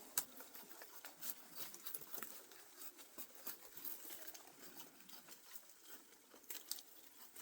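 A chopper knife's blade drawn like a drawknife, shaving bark off wood: faint, irregular scraping and crackling with many small clicks.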